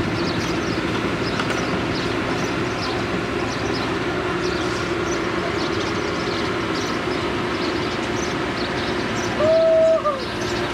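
Heavy diesel engine of an excavator running steadily with a rumbling clatter. About nine and a half seconds in, a loud steady tone sounds for under a second and cuts off.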